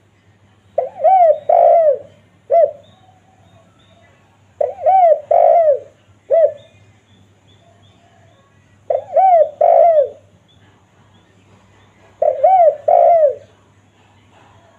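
Spotted dove (tekukur) cooing: four phrases of two or three arched coos each, spaced a few seconds apart. The first two phrases are each followed by one short extra coo.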